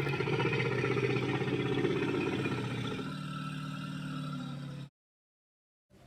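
Mammoth sound effect: a long, low, steady rumbling call that fades slightly, then cuts off suddenly about five seconds in.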